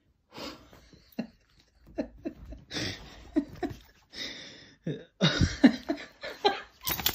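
A person laughing quietly in short, breathy, stifled bursts.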